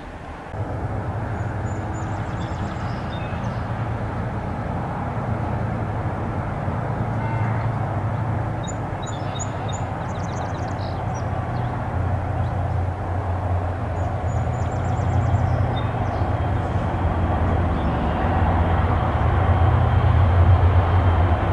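Diesel freight locomotive rumbling low and steady, growing louder as the train approaches. A small bird chirps a few times.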